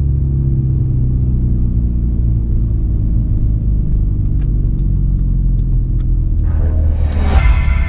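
Heavy diesel semi-truck engine rumbling steadily. Near the end a rising rushing sound swells up over it.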